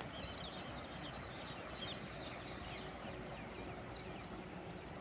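Birds chirping: many short, quick, downward-sliding calls, over a steady faint background noise.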